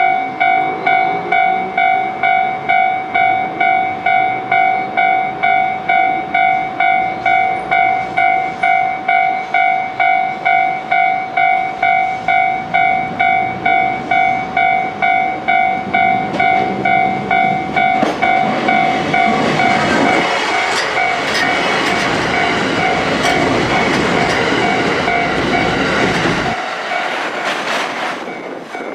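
Japanese railway level-crossing warning bell ringing in even, repeated strokes, about one and a half a second. From about two-thirds of the way in, a JR E131 series 1000 subseries electric train passes over the crossing, its wheels rushing and clacking over rail joints, and nearly drowns the bell. Bell and train noise stop together near the end.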